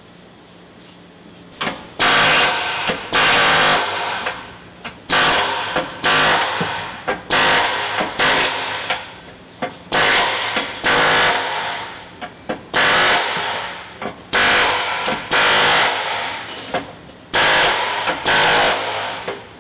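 Katashi AH-75RH pneumatic air hammer with a chisel bit, hammering on the sheet-metal body of a stripped car. It fires in a run of about fifteen short, loud bursts, each around half a second long with brief pauses between, starting about two seconds in.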